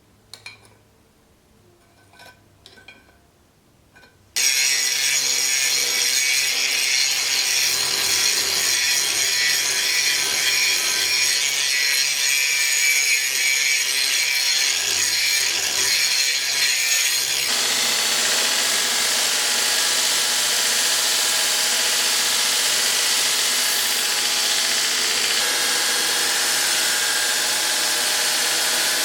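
A power grinder working steel: a loud, steady abrasive hiss that sets in abruptly about four seconds in, after a few faint clicks, and changes tone partway through.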